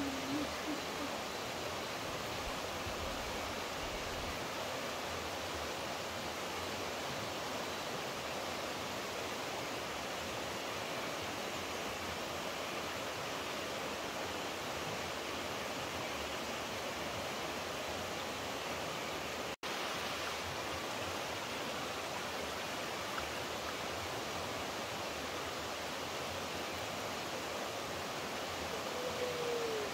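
Steady rushing of flowing water, as from a stream or waterfall. A short low whistle falls in pitch right at the start and again near the end, and the sound cuts out for an instant about two-thirds of the way through.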